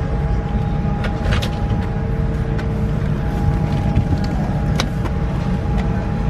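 Steady low rumble of a Boeing 787-9's cabin air and systems noise, the aircraft parked at the gate before engine start, with two faint steady hum tones over it. A few light clicks and rustles from things handled at the seat.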